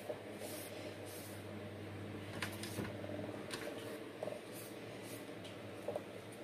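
Faint rubbing and handling of orchid leaves as they are wiped with a cotton pad, with a few light clicks scattered through, over a steady low hum.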